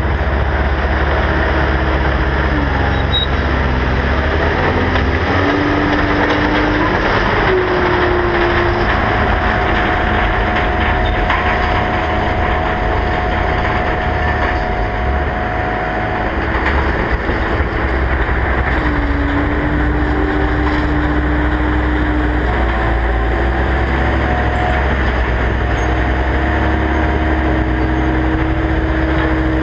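Caterpillar 299D XHP compact track loader running, its diesel engine a steady low rumble, with whining tones that step up and down in pitch several times as the machine moves and works its lift arm.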